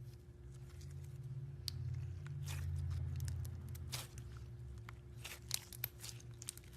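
Slime being worked by hand with a series of crisp crackles and pops over a low handling rumble, the crackles sharpest in the second half.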